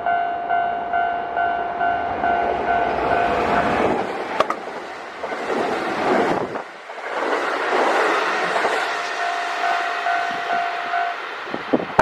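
A Japanese level-crossing alarm bell rings in a steady pulse, about two strokes a second. About four seconds in, a Kintetsu Osaka Line train passes with loud rushing wheel-and-rail noise that drowns the bell, and a sharp clack comes just after it starts. The bell is heard again through the train noise near the end.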